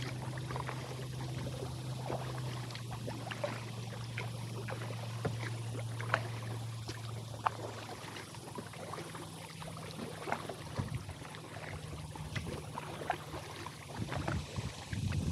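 Kayak being paddled through choppy water: water splashing and lapping at the hull with scattered small drips and splashes from the paddle. Under it runs a steady low hum that steps up in pitch about halfway through, and wind buffets the microphone near the end.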